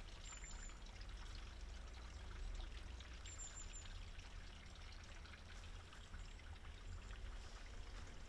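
Faint running water trickling steadily, like a small stream.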